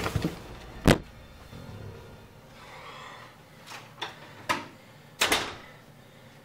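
A door latch clicks sharply about a second in, followed by a few softer knocks and a brief swish as the door is worked open.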